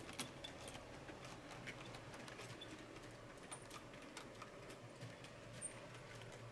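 Faint, irregular clicking of an HO Fleischmann tinplate model train running on its track, over a low, steady hum.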